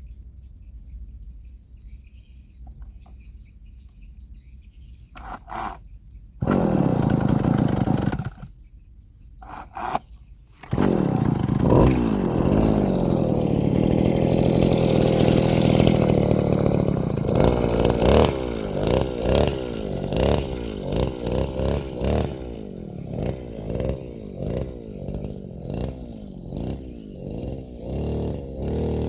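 A small motor starts about six seconds in, runs for about two seconds and cuts out, then starts again a couple of seconds later and keeps running, its pitch rising and falling. Over the last several seconds it is sped up and slowed down in quick repeated pulses.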